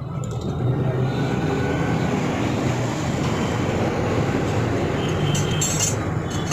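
A vehicle engine running with a steady low rumble, growing louder about half a second in.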